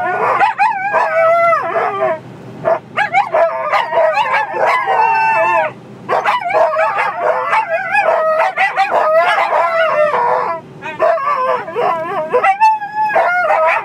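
Several Siberian Huskies howling together inside a car, overlapping voices wavering up and down in pitch, with three short breaks.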